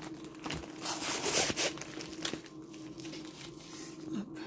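Plastic packaging crinkling and rustling as rolled diamond-painting canvases in clear plastic sleeves are handled, loudest about a second in.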